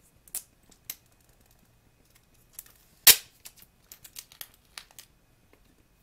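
Packaging of an Apple USB power adapter being worked open by hand: scattered small clicks and crackles, with one sharp snap about three seconds in followed by a quick run of lighter clicks.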